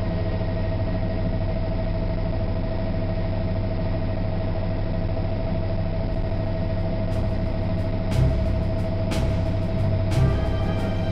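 Bell helicopter in flight, heard from inside the cockpit: a steady rotor and turbine drone with a steady whine running through it. Thumps come in near 8 and 10 s.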